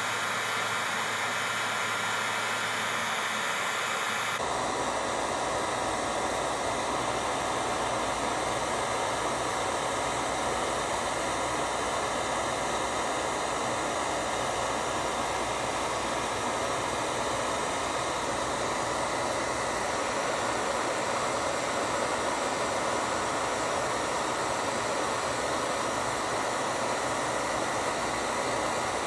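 Handheld electric hot-air tool blowing steadily, a constant rushing hum, used to melt and blend coloured pencil on canvas. Its sound changes abruptly about four seconds in.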